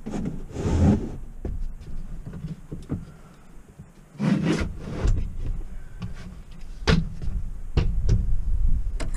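A wooden slatted pull-out bed extension being handled and pushed back into its frame: wood sliding and rubbing in two longer scrapes, about a second in and about four seconds in, then a few sharp wooden knocks near the end.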